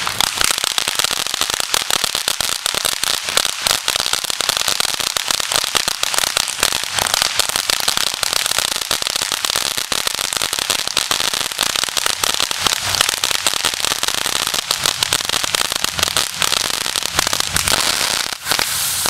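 Ground-fountain fireworks spraying sparks, with a dense, continuous crackle and hiss and a brief drop near the end.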